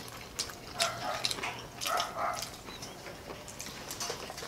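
Close-miked chewing of fried food: wet lip-smacking and mouth sounds with crisp little clicks from several people eating with their hands.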